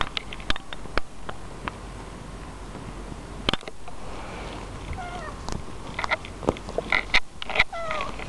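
Calico cat scuffling on a fabric couch, with scattered clicks and rustles, then several short meows that glide in pitch in the second half.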